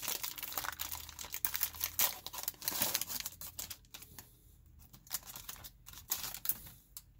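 Foil wrapper of a Fortnite Series 2 trading-card pack crinkling and tearing as it is ripped open by hand. The crackling is dense for about four seconds, then thins to scattered crinkles.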